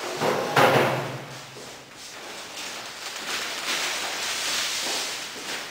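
Large flip-chart paper sheets being handled and flipped over the top of the easel: a loud rustle and flap about half a second in, then a longer spell of paper rustling in the second half.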